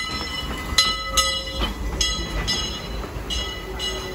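Disneyland Railroad train rolling past, its wheels clicking over a rail joint in pairs about every second and a quarter, each click with a brief metallic ring, over a steady low rumble.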